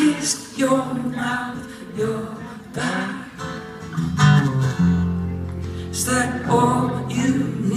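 Acoustic guitar strummed live on stage, chords struck and left ringing, with a fresh strum every second or so.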